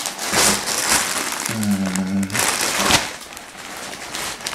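Clear plastic garment bag crinkling and rustling as it is lifted out of a cardboard box and handled, with louder crackles near the start and about three seconds in. A man hums a short, steady "mm" about a second and a half in.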